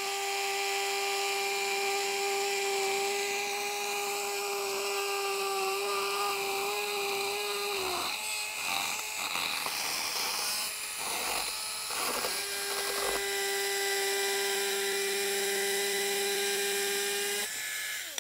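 Battery pruning chainsaw running with a steady high whine. About eight seconds in, its pitch wavers and drops for several seconds as the chain cuts lengthwise through an old grapevine arm. It then whines steadily again and cuts off shortly before the end.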